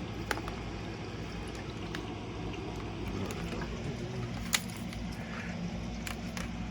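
Steady low background noise with a few faint hum lines, broken by several small clicks and taps; the sharpest click comes about four and a half seconds in.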